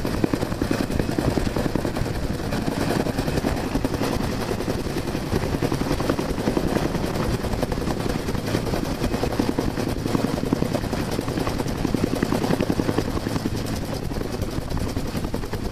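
Helicopter hovering low overhead: a steady, rapid rotor beat over continuous engine noise.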